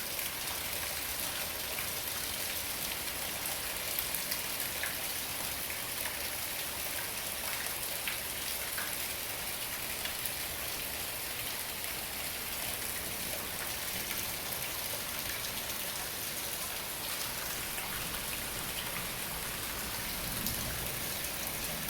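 Heavy tropical-storm rain falling steadily, spattering on surfaces and pool water with scattered drips.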